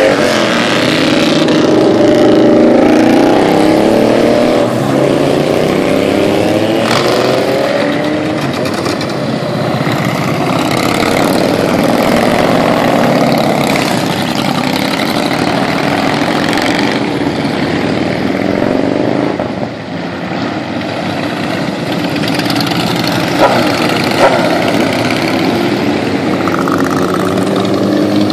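A procession of motorcycles riding past one after another, their engines rising and falling in pitch as each goes by and revs away. Two short, sharp cracks stand out a little past two-thirds of the way through.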